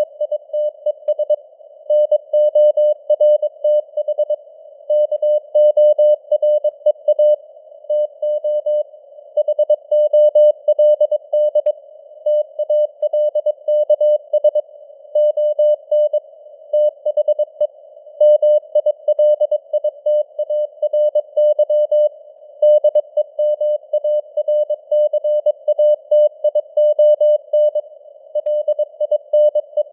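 Morse code at 22 words per minute: a steady tone of about 600 Hz keyed into dots and dashes over a narrow band of simulated receiver hiss, the signal strength rising and falling a little as it fades (QSB).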